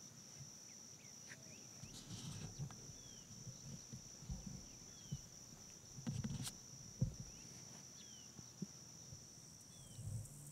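Steady high-pitched insect chorus, crickets, in a field at dawn, with a faint short falling chirp every two seconds or so. Scattered soft low thumps and rustles run underneath, loudest about six to seven seconds in.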